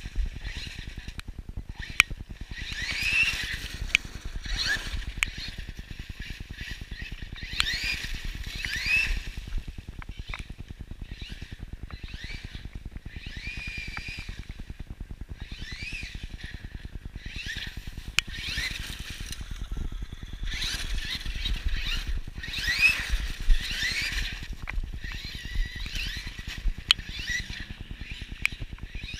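Axial Yeti XL RC truck's electric motor and drivetrain whining in repeated short bursts, pitch rising and falling with the throttle, with scattered sharp clicks over a steady low rumble.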